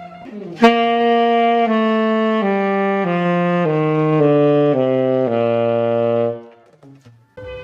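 Selmer Mark VI tenor saxophone played down a falling scale of about eight notes into its low range, starting with a sharp attack and ending on a longer low note.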